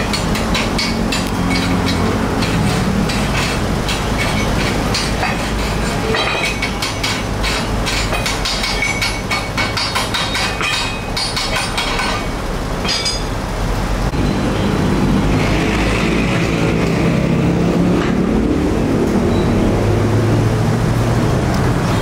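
Welding-shop noise: a steady low mechanical hum, with many sharp metallic clicks and clanks for about the first twelve seconds, then a smoother hum.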